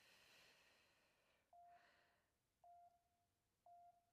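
Faint breathing: a slow exhale, then three short, even beeps about a second apart from an interval workout timer counting down the end of a 30-second stretch.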